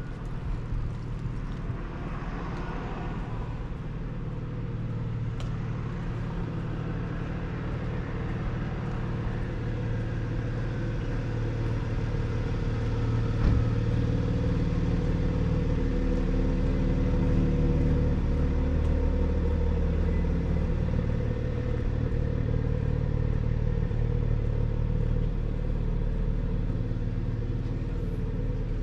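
Low, steady engine rumble of an unseen motor vehicle, growing louder over the first half and then holding steady, with one sharp click about halfway through.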